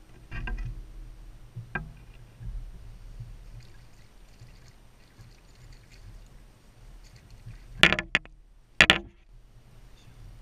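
Muffled knocks and bumps on a kayak over a low rumble, heard through a sealed waterproof camera housing, with two louder thumps about a second apart near the end.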